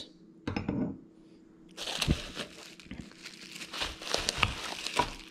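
Plastic and bubble wrap around a boxed steering wheel crinkling under a hand, in a dense run of small crackles that starts about two seconds in. Before it, a brief knock about half a second in.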